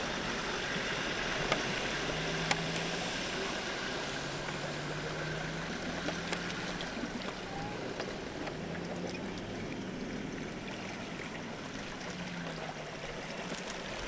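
Water rushing and swishing as a Land Rover Discovery 3 wades through a river. A faint, low engine note comes and goes under it.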